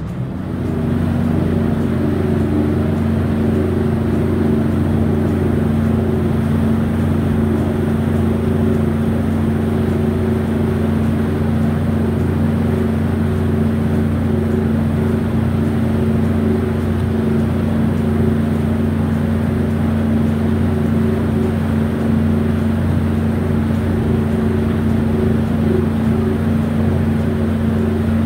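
A boat's engine running steadily at constant speed: a loud, even drone that holds one pitch throughout.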